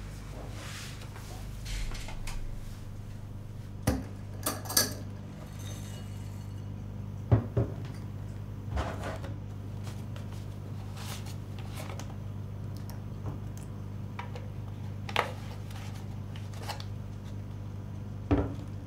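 Dishes and cutlery clinking and knocking: a handful of sharp, scattered strikes over a steady low hum.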